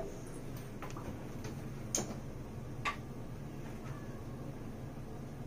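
A few light clicks and taps, about a second apart, from a plastic cooking-oil bottle being handled and tipped to pour oil for greasing a baking dish, over a low steady hum.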